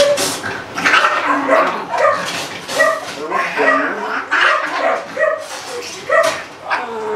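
Long-haired domestic cat yowling and hissing over and over, short pitched calls about every half second with hisses in between, as it resists being pulled from a cage and restrained.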